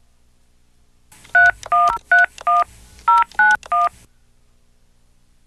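Touch-tone telephone keypad dialing: seven quick two-tone beeps in a row, starting about a second in and stopping about four seconds in.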